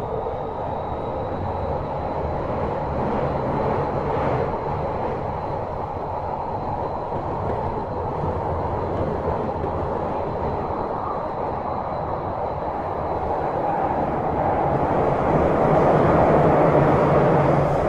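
Kyoto Municipal Subway 50 series train running in a tunnel, heard from inside the car: a steady rumble of wheels on rail with a thin high whine over it. It grows louder about three-quarters of the way through, then eases off at the end.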